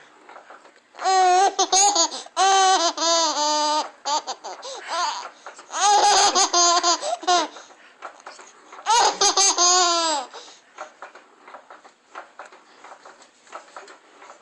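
A baby laughing in three bouts of high-pitched, quickly repeated laughs: a long run in the first few seconds, another around the middle, and a third a little later, with quieter gaps between.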